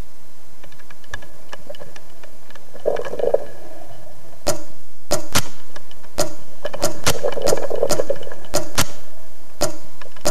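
Dinner-table sounds used as percussion in a composition: faint ticking at first, then from about four and a half seconds a run of sharp taps or clinks, about two a second, each with a short ring.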